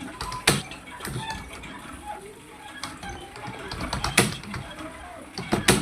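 Computer keyboard being typed on in an irregular rhythm, with a handful of louder key strikes among lighter clicks.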